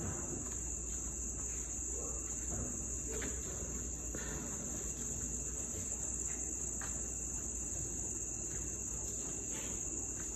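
Steady high-pitched insect chorus that does not change, with a few faint soft knocks.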